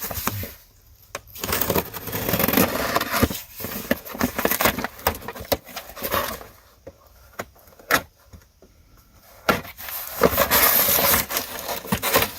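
Cardboard box and packaging being opened and handled, rustling and crinkling with small knocks in two spells and a single sharp click between them.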